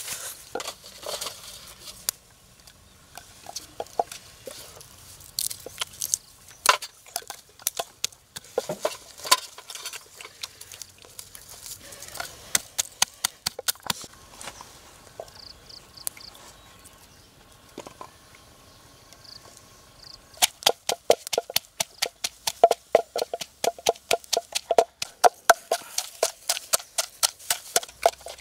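Wooden pestle pounding in a wooden mortar: a fast, steady run of hard knocks that starts about two-thirds of the way in. Before that there are only scattered light clicks and crackles.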